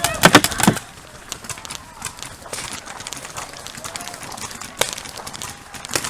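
Scattered sharp pops of paintball markers firing across the field. They follow a few loud knocks in the first second, and one pop about five seconds in stands out.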